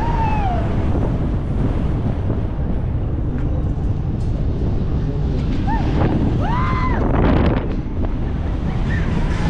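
Heavy wind rushing over the microphone as the Airborne giant pendulum ride swings at speed. Short rising-and-falling cries from riders come at the start and again about six to seven seconds in.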